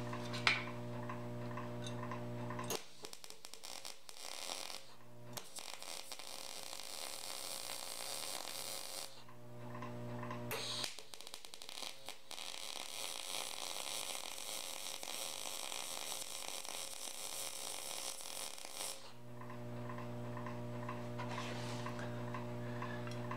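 Lincoln SP250 MIG welder running test beads on sheet-metal scrap with .023 wire: two long stretches of steady arc crackle and sizzle, the first with a brief break about five seconds in, the second starting about eleven seconds in and stopping about nineteen seconds in. Before and after the beads there is a steady hum with light ticking.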